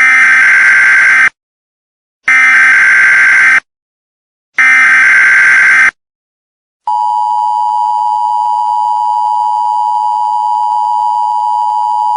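Emergency Alert System tones: three identical bursts of the SAME digital header, each a harsh warbling data squeal lasting just over a second with about a second of silence between them. About a second after the last burst, the steady two-tone EAS attention signal (853 and 960 Hz together) starts and holds.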